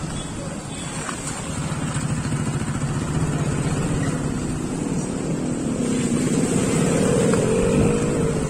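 Motorcycle engine running with a steady hum, then engine pitch rising and wavering over the second half as a bike revs up, loudest near the end.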